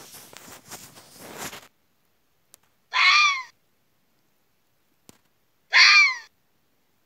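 Fox calling: two short, high-pitched calls about three seconds apart, each falling in pitch and lasting about half a second. A rustling noise runs through the first second and a half.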